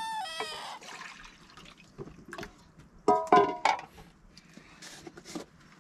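A rooster's crow trails off with a falling pitch at the start. Then stainless steel bowls and pots knock together: a loud, ringing metal clang about three seconds in, with a few lighter knocks before and after.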